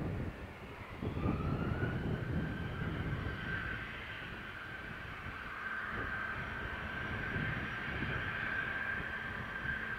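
Twin rear-mounted turbofans of a taxiing Embraer Legacy business jet: a steady high-pitched jet whine that rises slightly about a second in and holds, over a low rumble.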